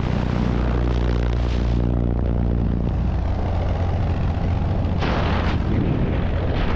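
Engine and propeller of a Cessna 182 in flight heard through the open door, with wind rushing past the microphone: a loud, steady low rumble. The engine's drone is clearest in the first few seconds. A gust of wind noise hits the microphone about five seconds in.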